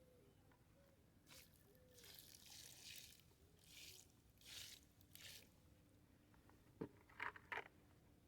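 Faint rustling swishes, several in the first half, then a few sharp clicks or taps near the end.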